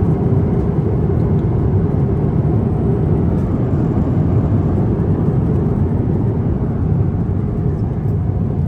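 Steady cabin roar of an Airbus A350-900 in flight through turbulence, with a few faint ticks about three and a half seconds in and near the end.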